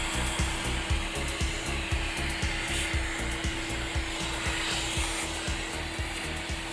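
Vacuum cleaner motor running steadily, a constant whine over a rushing hiss, with background music with a steady beat underneath.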